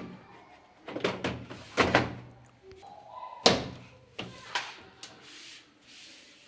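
A series of sharp knocks and clunks, six or seven in about four seconds, the loudest about three and a half seconds in: a tumble dryer's panels and parts being handled and fitted back during reassembly.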